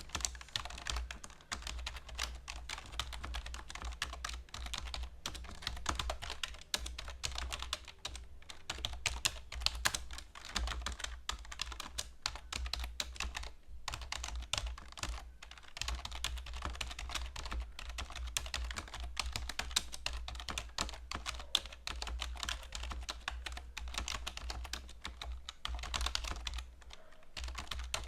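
Fast, continuous typing on a computer keyboard: a dense run of key clicks, with a couple of brief pauses midway and a short pause near the end.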